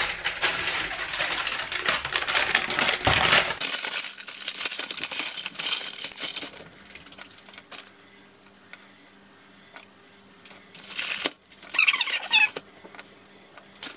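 Baking paper crinkling and rustling as a set slab of Christmas crack (chocolate over caramel and Ritz crackers) is handled and broken up by hand. Sharp cracks and clicks come as the hardened chocolate snaps into pieces.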